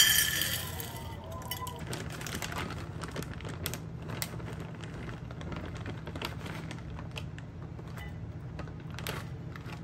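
Corn kernels pouring from a glass bowl into a ceramic baking dish, a loud rattling clatter at the start that dies away within about a second. Then light crinkling of a bag and small scattered clicks as shredded mozzarella is shaken into the dish, over a steady low hum.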